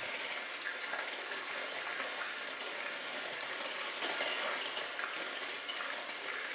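KitchenAid electric hand mixer running steadily, its wire beaters whirring through thick banana-muffin batter as eggs are beaten in.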